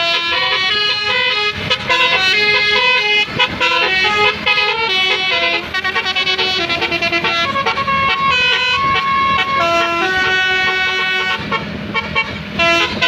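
Basuri telolet bus horns playing rapid multi-note tunes, several pitched tones stepping up and down in short phrases.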